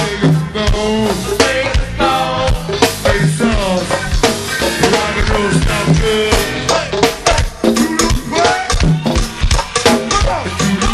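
Live go-go band playing: a vocal line over drum kit and hand percussion with a steady groove.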